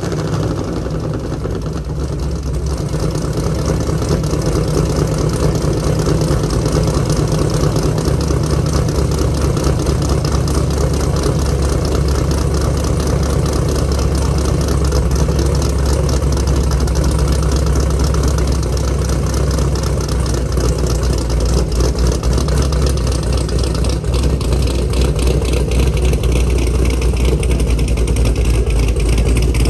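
Camaro SS's LS3 V8 running at idle through long-tube headers and the factory NPP exhaust, a steady, deep exhaust note that grows heavier about 8 seconds in and then holds steady.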